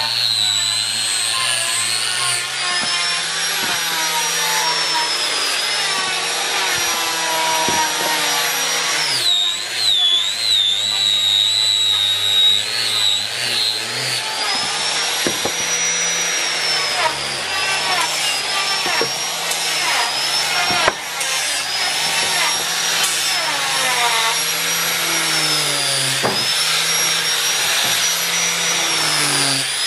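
Electric angle grinder fitted with a sanding pad, running steadily while sanding a wooden door panel. Its high whine sags and recovers in pitch several times as the pad is worked against the wood.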